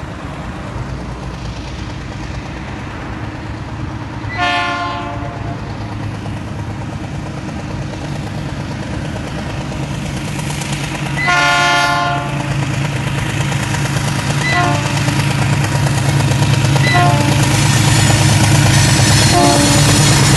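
Diesel locomotive of a track maintenance train approaching and passing close by. Its horn sounds two blasts of about a second each, some seven seconds apart, then three short toots, over a low diesel engine rumble that grows louder as the locomotive draws near.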